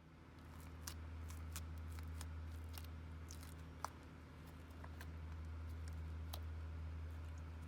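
Slime being squeezed and mixed by hand, making scattered small clicks and pops, over a steady low hum.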